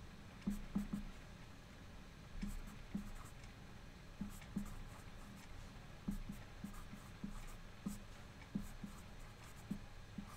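Marker pen writing: quiet, irregular taps and short strokes of the tip on the writing surface.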